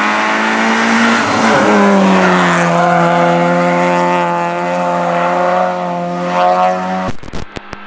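Peugeot 106 rally car engine running hard through a bend. Its note drops in pitch about two seconds in and then holds steady. Near the end it cuts suddenly to a choppy, broken sound.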